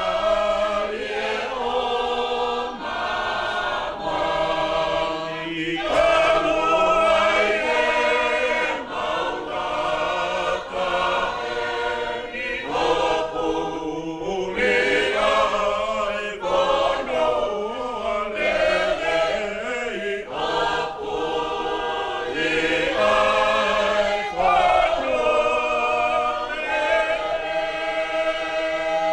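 A congregation of many voices singing a hymn together in Tongan, in sustained phrases of harmony.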